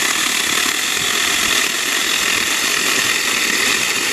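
Saker Mini 20-volt cordless electric chainsaw with a 4-inch bar running steadily as its chain cuts through a green branch, the small motor working hard to get through the really green wood.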